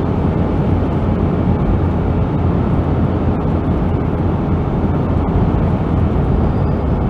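Steady road and engine noise inside a vehicle's cab cruising on a paved highway: an even, low rumble of tyres and engine that does not change.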